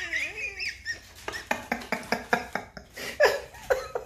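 A kitten's claws and paws clicking and tapping on a hardwood floor, about four sharp taps a second, as it scrambles and bats at a dangling shoelace. A short wavering cry is heard at the start.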